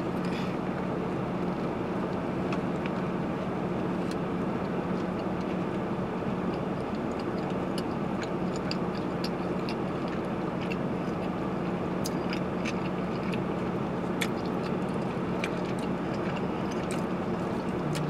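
Steady hum inside a car's cabin, with scattered faint clicks of someone chewing a bite of cheeseburger.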